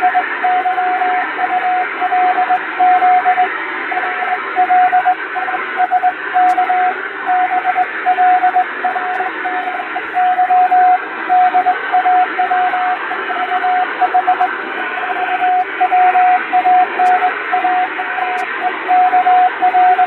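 Morse code (CW) radiotelegraph signal as heard on a shortwave receiver: a single steady tone keyed on and off in dots and dashes over a constant hiss of static, with noise and fading added to imitate a real radio channel. It is sending an English-language practice telegram in five-letter code groups.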